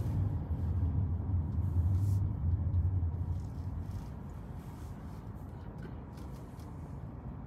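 A car being driven: steady low road and engine rumble, louder for the first three seconds or so and then settling to a quieter hum, with a few faint clicks.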